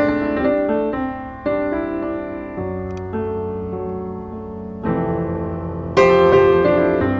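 Background piano music: notes and chords struck and left to fade, with stronger chords about five and six seconds in.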